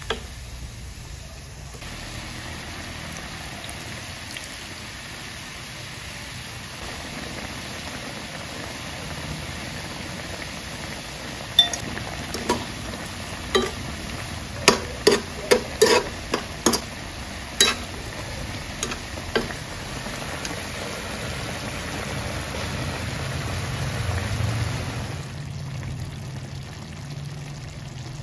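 Adobo sauce boiling hard and sizzling around pieces of chicken in a metal pan as it reduces over high heat. About halfway through, a spoon knocks and clicks against the pan a dozen or so times.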